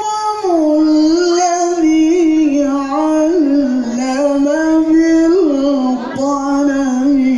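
Qur'an recitation in melodic tilawah style: one voice holds long, ornamented notes whose pitch sinks slowly, with small turns every second or two and a brief break for breath about six seconds in.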